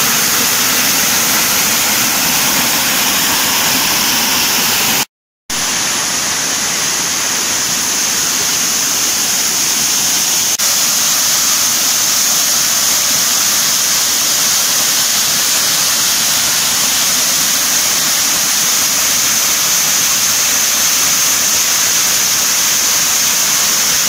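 Waterfall pouring over a rock face, heard close up: a loud, steady rush of falling water that breaks off for a moment about five seconds in.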